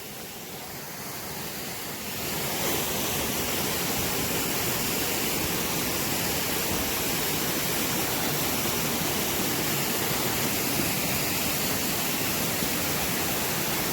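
Waterfall's steady rush of falling water, growing louder over the first couple of seconds and then holding even.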